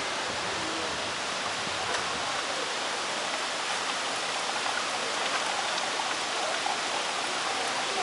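Steady rush of running water: an even, constant hiss with no separate splashes or drips standing out.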